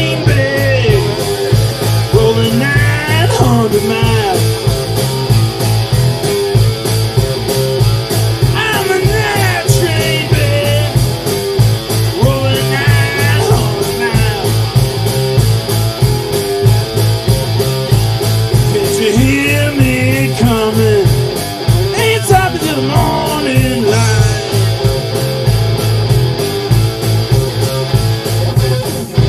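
Live three-piece rock band playing: an electric guitar lead of bending, wavering notes over electric bass and a steady drum-kit beat.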